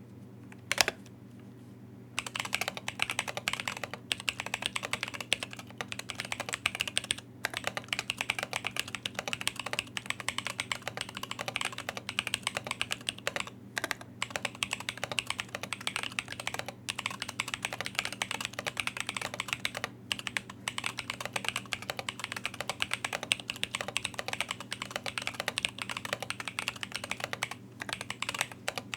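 Custom mechanical keyboard with an Alais case, carbon fibre plate, Moyu switches lubed with Krytox 205g0 and fitted with Durock films, and KAT keycaps, being typed on quickly and continuously. There is one keystroke just under a second in, then steady fast key clacks from about two seconds in.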